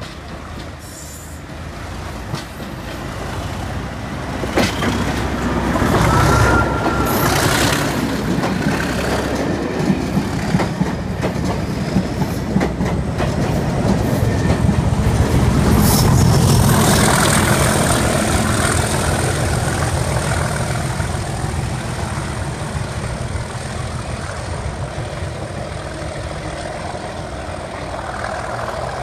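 A pair of English Electric Class 37 diesel locomotives with a test train passing close by. The leading loco's engine grows louder as it approaches and goes past, the coaches clatter over the rail joints, and the engine sound peaks again about halfway through as the rear loco passes, then slowly fades as the train pulls away.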